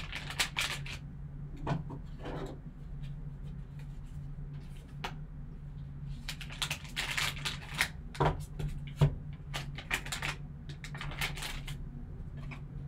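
Foil wrapper of a sealed trading-card pack crinkling and tearing as it is handled and opened by hand, in irregular bursts, with a steady low hum underneath.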